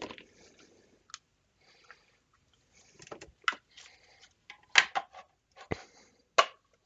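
Silicone mold being pulled apart and a cured resin dice tower casting lifted out of it: soft rubbery rustling, then several sharp knocks and taps as the hard resin part and the mold pieces are handled.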